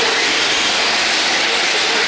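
Several radio-controlled racing cars running around a dirt track, a loud, steady noise with no breaks.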